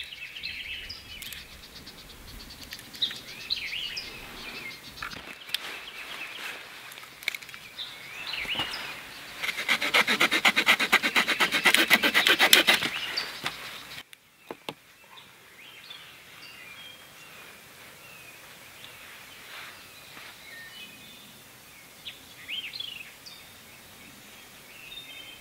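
A knife sawing through a wooden stick in quick, even strokes for about three seconds in the middle. Birds chirp throughout.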